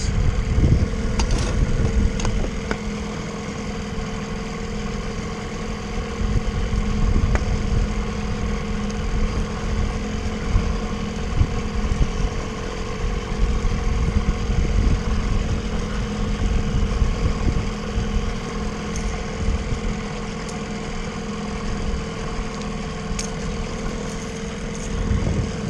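Small Johnson 9.9 outboard motor running steadily at an even pitch.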